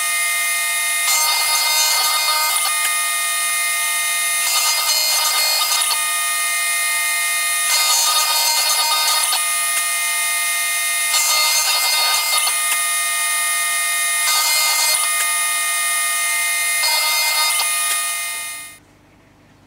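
6090 CNC router's spindle whining steadily as a fine engraving bit cuts lettering into the rim of a metal coin medal, with a rougher cutting noise swelling in about every three seconds. The sound cuts off suddenly near the end.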